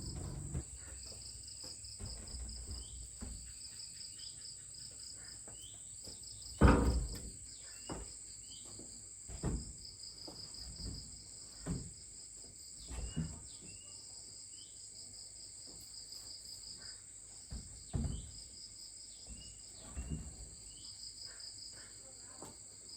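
Insects trilling steadily: a continuous high drone with a pulsing cricket chirp beneath it. Several dull thumps break in at irregular intervals, the loudest about seven seconds in.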